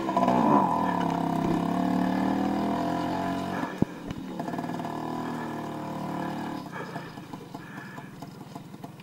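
Small scooter engine running at a fairly steady pitch, then, after a sharp knock about four seconds in, dropping to a quieter, uneven putter as the throttle comes off.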